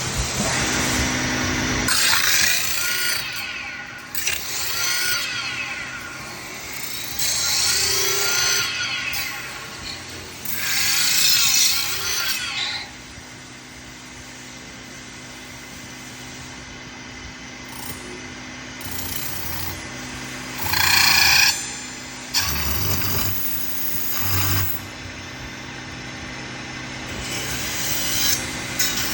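CNC metal-spinning lathe forming a 1.5 mm brass blank: the machine runs steadily, and there are repeated bursts of scraping and squealing, each a second or two long, as the forming roller works the spinning brass. The loudest burst comes about two-thirds of the way through.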